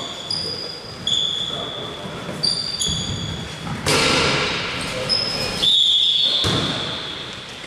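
Basketball court sounds: sneakers giving short high squeaks on the floor while a basketball bounces, with a sharp thud about four seconds in.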